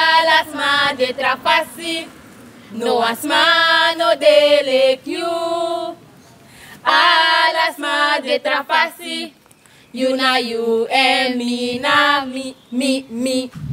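A small group of girls singing together a cappella: a song of short phrases with held notes, broken by brief pauses.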